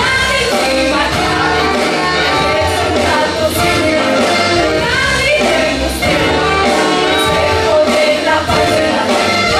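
Stage-musical song: voices singing over instrumental accompaniment.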